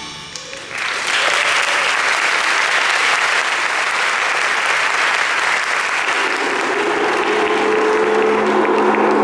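Audience applauding, breaking out about a second in as the music dies away, and continuing steadily.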